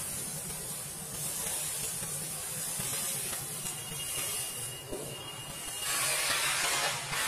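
Fine, dry red dirt pouring through fingers back into a bowl and being worked by hands: a soft, steady hiss that grows louder near the end.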